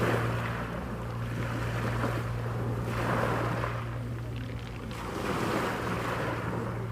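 Sea waves washing in, swelling and fading about every two to three seconds, over a steady low hum.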